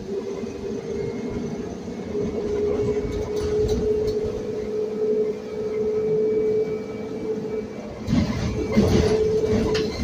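Cabin sound of a Proterra Catalyst E2 battery-electric bus under way: a steady whine from the electric drivetrain over road rumble and rattles. Near the end there is a burst of louder rumbling and knocks.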